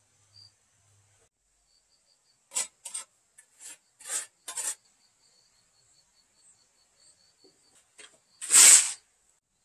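Gritty scraping of a hand trowel working wet mortar and gravel: about six short scrapes in quick succession, then one louder, longer scrape near the end.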